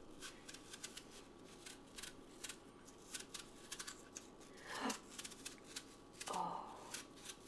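Paring knife cutting the skin off an apple in one long strip: a run of small, quiet, irregular crisp clicks and scrapes. A short murmur of voice about five seconds in.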